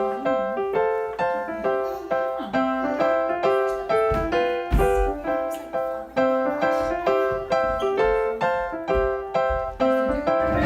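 Background music: a piano melody of evenly paced notes, about three a second, each struck and fading.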